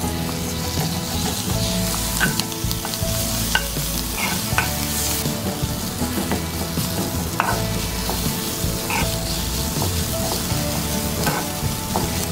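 Chopped onions and ginger-garlic paste sizzling in a non-stick frying pan, stirred with a wooden spatula that scrapes and knocks against the pan every second or two.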